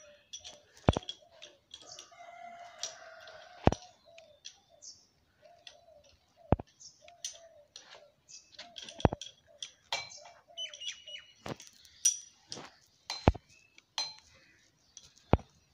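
Steel spanner clinking sharply against the metal parts of a diesel engine being assembled, about eight irregular clinks. Birds and chickens call faintly between them.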